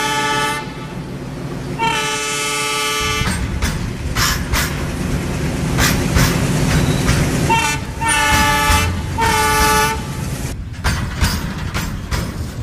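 Diesel locomotive horn blowing four times: one blast at the start, a longer one about two seconds in, and two close together about eight seconds in. Between and under them a freight train runs past with a steady rumble and repeated rail clicks.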